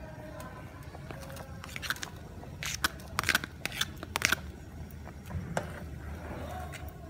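Metal spoon scraping and tapping on a plastic plate as chopped ingredients are pushed off it into a boiling pot: a quick run of sharp scrapes and clicks about two to four seconds in, over a steady low rumble.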